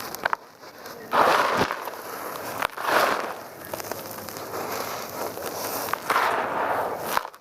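Dry mud crunching and crumbling in about three crackly bursts, near one, three and six seconds in, with small sharp clicks between.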